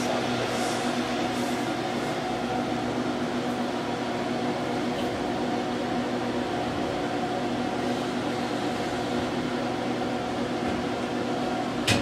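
Steady electric hum of a running fan motor, with a low even tone underneath; a short click near the end.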